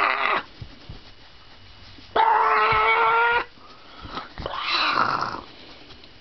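Happy baby squealing a high, drawn-out "ah": a cry trailing off just at the start, a loud one lasting over a second about two seconds in, and a softer one a little before five seconds in.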